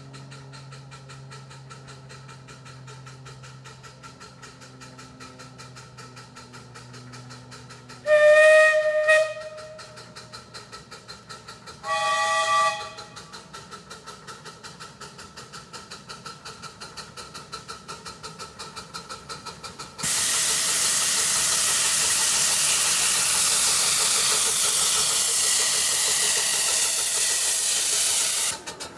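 Miniature live-steam locomotive approaching with a steady, quick exhaust beat that grows louder. Its whistle sounds twice, a longer blast about a third of the way in and a shorter one soon after. A loud steam hiss starts about two-thirds of the way through as the engines come close, then cuts off sharply near the end.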